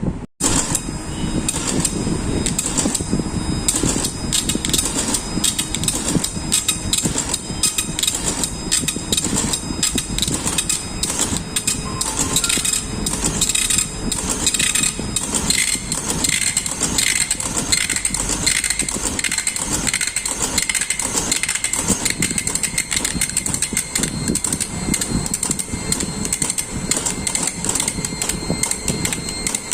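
Epson dot-matrix printer printing: a loud, steady, rapid rattle of print-head strikes.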